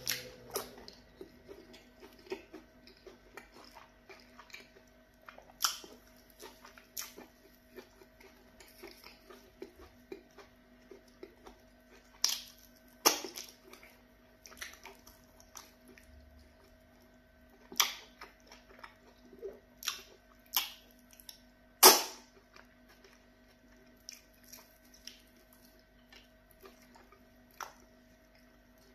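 Close-up eating by hand: wet chewing and mouth smacks, with squelches as fingers pinch fufu and scoop slimy okra soup. Short sharp smacks come irregularly throughout, the loudest about three-quarters of the way through.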